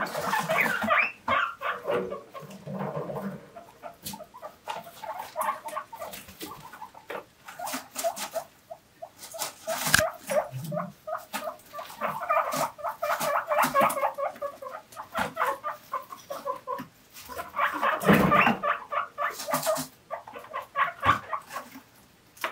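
Several guinea pigs wheeking: rapid runs of short, repeated high squeals that come in waves. This is their begging call for vegetables.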